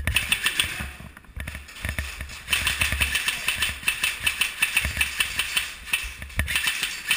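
Airsoft guns firing in rapid full-auto bursts, a fast mechanical rattle of shots that gets heavier about two and a half seconds in.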